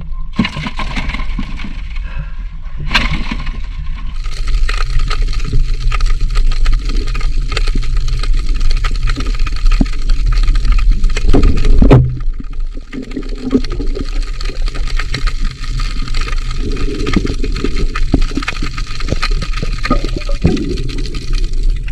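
Rushing, gurgling water noise around a camera moving underwater during a night hunt for blue crabs, over a steady low rumble. The sound changes character about four seconds in and again about halfway through.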